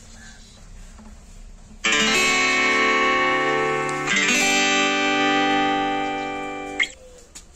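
Two loud chords strummed on a plucked string instrument, about two seconds apart, each left ringing and slowly fading, then cut off abruptly.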